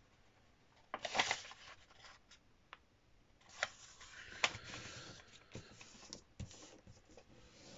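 A sheet of printer paper being folded in half lengthwise and creased by hand: faint rustling and sliding of the paper, with a few light ticks and scrapes as the fold is pressed down.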